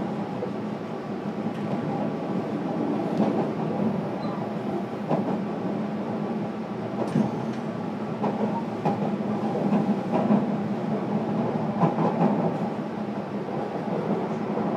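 Running sound heard inside the passenger cabin of a JR Kyushu 305 series electric multiple unit motor car: a steady rumble of wheels on rail with a low hum. A few sharp clicks from the wheels passing over the track come every second or two.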